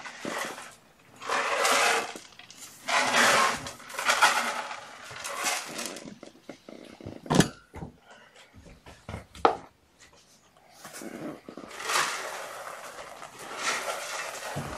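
Cat litter being scooped: gritty rustling bursts about a second long, with two sharp knocks partway through.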